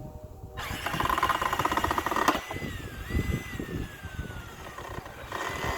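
Cordless drill running on a screw. Its motor whine holds steady, falls slowly in pitch for a couple of seconds, then runs steady again near the end.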